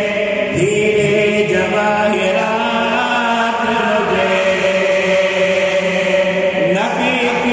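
A man singing a naat into a handheld microphone, in long held notes that slide slowly between pitches, with a quick upward run near the end.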